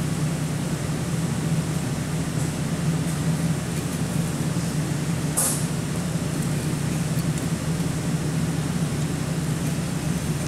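Steady low mechanical hum, like a fan or motor running, with a brief high hiss about five seconds in.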